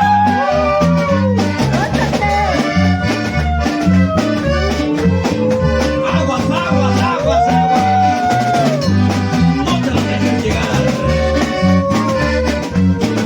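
Instrumental break of a norteño band: an accordion melody over a steady, pulsing bass and drums.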